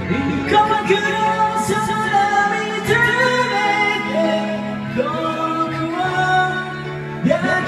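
A song sung over a karaoke backing track: a voice holding and sliding between notes over steady accompaniment.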